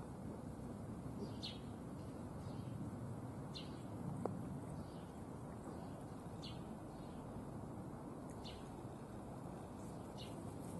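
A bird calling five times, short high chirps about two seconds apart, over a steady low background rumble.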